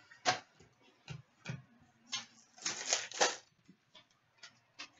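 Hockey trading cards being flipped through and handled in the hands over a glass counter: a series of short, sharp papery flicks and clicks, busiest about halfway through.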